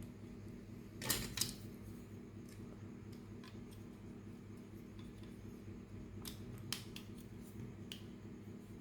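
Light clicks and clatters of small hard plastic toy pieces being handled: a quick cluster about a second in, then a few single clicks, over a steady low hum.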